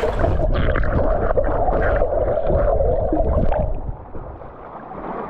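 Sea water heard through a partly submerged action camera: muffled churning and bubbling with the high end cut off, stirred up by a dog swimming close by. It turns quieter about four seconds in.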